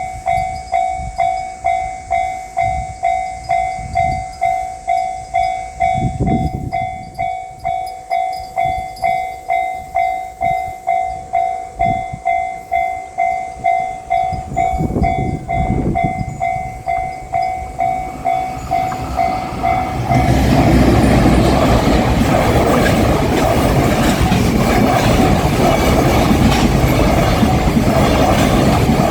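Japanese level-crossing warning bell ringing its repeated 'kan-kan' at about two strokes a second. About twenty seconds in, a freight train reaches the crossing and the loud rumble of its wheels and wagons on the rails takes over.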